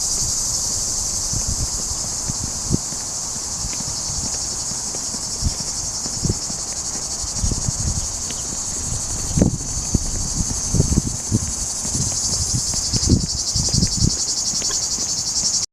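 Outdoor summer insect chorus: a steady, dense, high-pitched chirring without a break, with scattered low thumps underneath.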